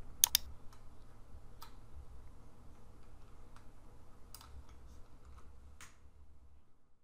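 Computer mouse clicking: a quick double click just after the start, then single clicks about a second and a half in, a little past four seconds and near six seconds, with fainter ticks between, over a low hum.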